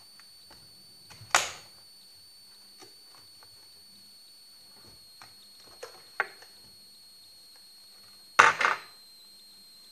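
Several sharp knocks and clunks of objects being handled and set down, the loudest about a second in and a double knock near the end. A faint steady high whine lies under them.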